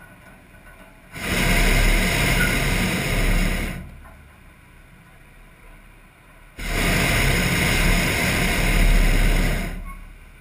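Hot-air balloon's propane burner firing in two long blasts of about three seconds each, starting about a second in and about six and a half seconds in, heating the envelope as the balloon climbs away at take-off.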